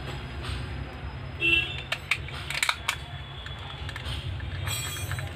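Sharp plastic clicks and snaps as the back cover of a battery wall-clock movement is fitted and pressed shut, in a quick cluster about two to three seconds in and again near the end. A brief pitched blip about one and a half seconds in is the loudest sound.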